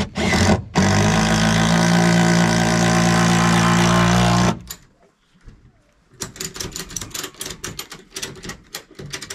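Power drill driving a screw into a wooden wheel chock: a couple of short bursts, then the motor runs steadily under load for about four seconds and stops abruptly. About six seconds in, a run of light knocks and clicks begins.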